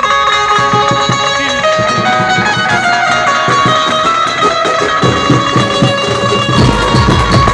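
Loud dance music with a steady beat and held melody notes over it.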